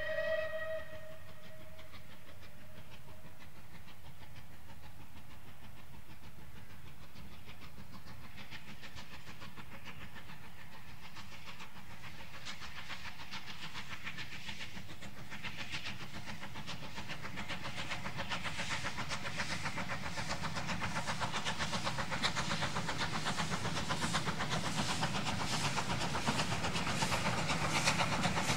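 Bulleid 'Battle of Britain' class Pacific steam locomotive 34072 '257 Squadron' sounds its whistle once, a short blast with a trailing echo. Its exhaust beats then grow steadily louder as it approaches hauling a train, and they are loudest at the end as it passes.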